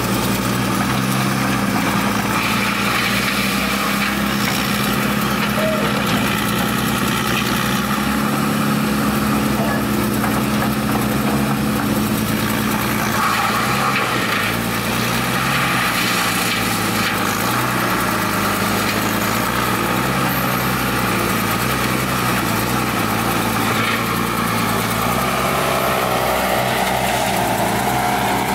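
Heavy diesel machinery at work: an excavator's engine running steadily, its pitch shifting now and then, over continuous broad noise from a wood grinder.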